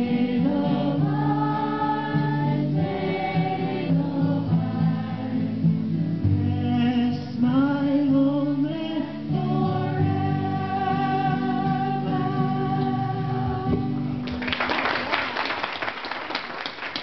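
Several voices singing a song together, ending on a long held note; applause breaks out about three seconds before the end.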